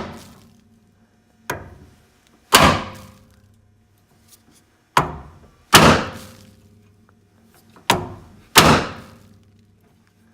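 Hammer striking a manual impact screwdriver, about six sharp metal blows with short ringing tails, some in quick pairs. The screwdriver is set to loosen, and each blow turns a rusted original door screw a little without stripping it.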